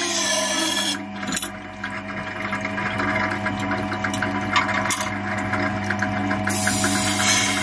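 Motorised wet sharpening wheel humming steadily while the chipped steel edge of a Damascus kitchen knife is ground against it, giving a scratchy scraping with many small clicks; the grinding turns harsher and hissier near the end.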